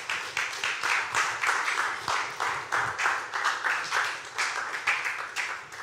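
Hands clapping in a steady rhythm, about three to four claps a second.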